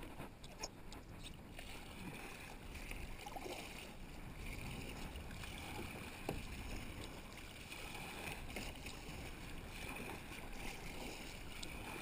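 Choppy water lapping against a plastic sit-on-top kayak's hull, with a few light knocks in the first second and a half.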